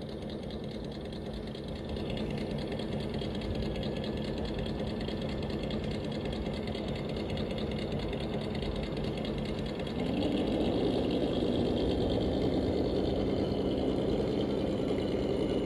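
Traxxas TRX-4 Defender D110 RC crawler's electric motor and gearbox whining steadily as it crawls. About ten seconds in, the whine rises in pitch and gets louder as it speeds up.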